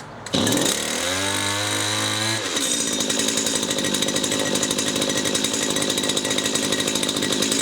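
Stihl HT 75 pole pruner's petrol engine catching on a pull of the starter cord after a cold start with the choke just off. It runs at a low, even idle for about two seconds, then speeds up to a steady high-speed run.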